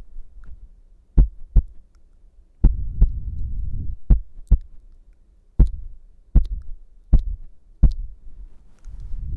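ASMR simulated heartbeat: deep, close-miked thumps in lub-dub pairs about one and a half seconds apart, quickening after the middle to single beats less than a second apart, with a low rumble between some of the beats.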